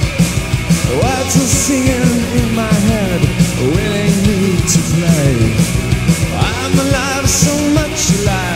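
Punk rock band music in an instrumental passage without lyrics: driving bass and drums with cymbal hits, and a wavering, sliding melody line that rises about a second in and comes back about six and a half seconds in.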